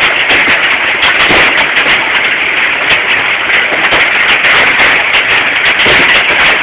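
Hailstones pelting down in a dense, steady clatter of hard taps and clicks over a hiss of falling ice and rain.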